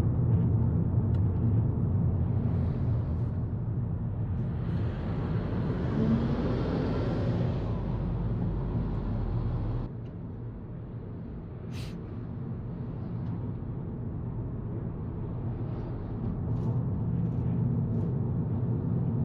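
Volkswagen Golf GTI mk7.5 on the move, heard from inside the cabin: a steady low drone of engine and tyre road noise. A louder hiss builds up about four seconds in and drops off suddenly about ten seconds in, and there is one short click about two seconds later.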